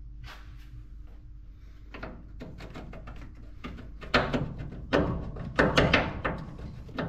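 Metal tools and suspension parts knocking and clanking as they are handled, a few scattered knocks at first, then a run of louder clanks in the second half.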